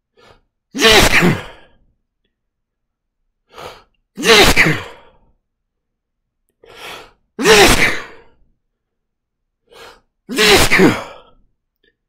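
A man's sneezing fit set off by chhinkni sneezing powder: four loud sneezes about three seconds apart, each preceded by a short breath in.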